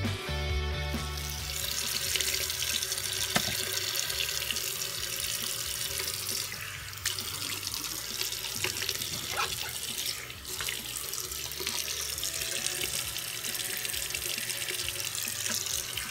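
Tap running into a bathroom sink, the stream splashing into the basin and over cupped hands, starting about a second in. Background music plays underneath.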